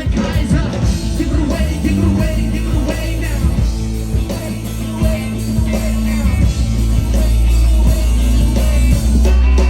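Live band of electric guitar, bass guitar and drums playing loud amplified music, with heavy bass.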